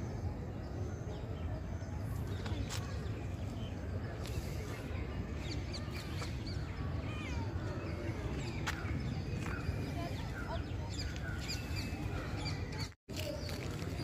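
Many birds chirping and calling over a steady low rumble. The sound cuts out for a moment near the end.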